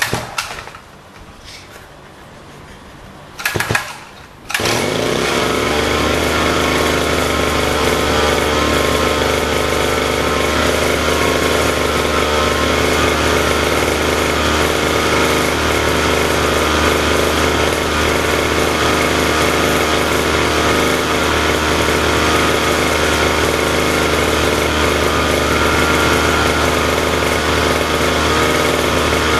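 Small petrol lawn-mower engine being started: two short starting attempts in the first few seconds, then it catches about four and a half seconds in and runs steadily.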